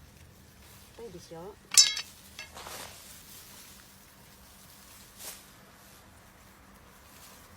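A brief, wavering call about a second in, followed by a short, sharp, high-pitched cry, the loudest sound. Then a soft rustle and a single light knock a few seconds later.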